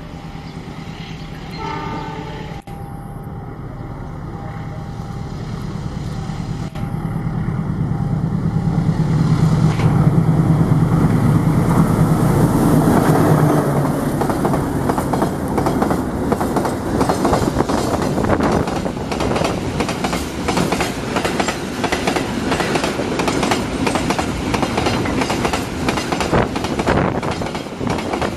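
Diesel-hauled container freight train passing fast: the locomotive's engine rumble grows louder as it nears, then from about halfway through the wagons go by with a rapid, steady clickety-clack of wheels over the rail joints.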